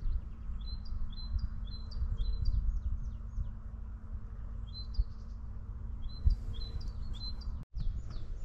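A small songbird singing short bursts of quick, high chirping notes, repeated several times, over a low rumble of wind on the microphone.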